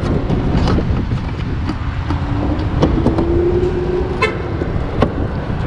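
Steady low traffic rumble in an open parking lot, with a single held horn note lasting about two seconds midway, rising slightly in pitch, and a few sharp clicks.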